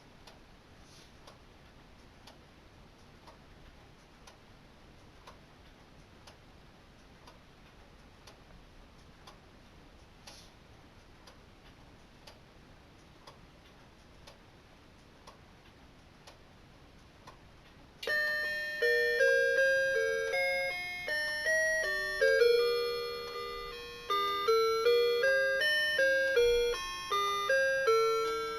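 A clock ticks faintly about once a second. Then, about eighteen seconds in, the clock's built-in alarm melody starts playing a Christmas song in chiming notes, several sounding at once.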